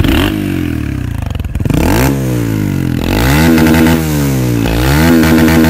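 Honda CRF230F single-cylinder four-stroke dirt-bike engine, fitted with an old FMF exhaust on the stock header, running low for about two seconds and then revved by hand on the throttle about three times, the pitch rising and falling with each rev.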